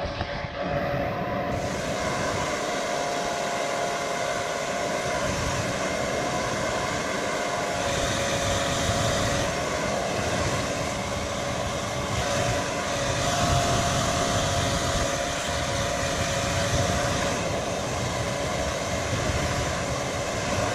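Handheld hair dryer running steadily, a continuous rush of air with a motor whine, its sound shifting a little a couple of times as the strength and heat settings are changed.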